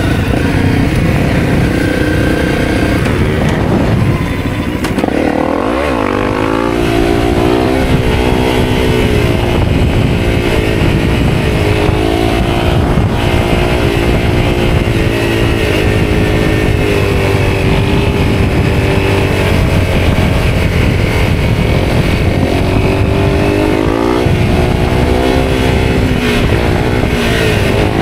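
Honda CRF250L's single-cylinder four-stroke engine running under way, its pitch climbing and easing as the throttle and gears change, with a drop and a fresh climb about five seconds in.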